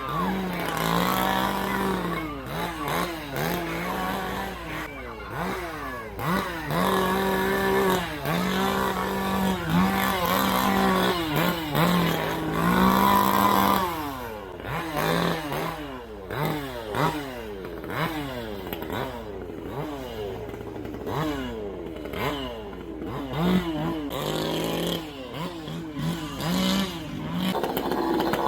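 Chainsaw engine revved over and over, its pitch sweeping up and down in quick blips, with stretches held steady at high revs.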